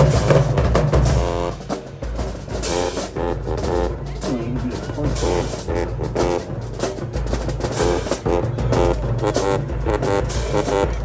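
High school marching band playing: horns carry the tune over a steady, regular drum beat.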